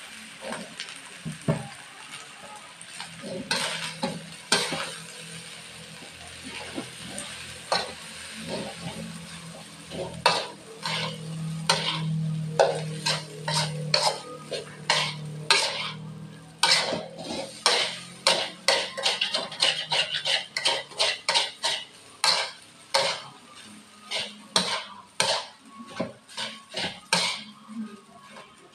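Metal spatula scraping and knocking against a metal wok as fried rice is stirred and tossed, over a faint sizzle. In the second half the strokes come quicker and more regularly, about two a second.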